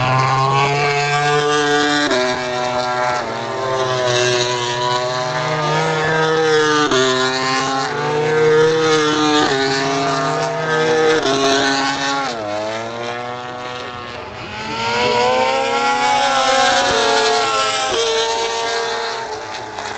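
Racing motorcycle engines at high revs passing trackside, the pitch climbing and then dropping sharply at each upshift, several times over. The sound fades a little around two-thirds of the way through, then rises again as another bike comes through.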